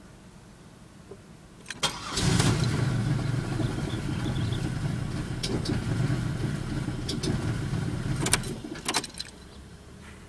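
2000 Pontiac Bonneville SE's 3.8-litre V6 cranking on the starter for about six seconds without catching, the sign of a no-start; a click comes just before the cranking and sharp clicks come near its end.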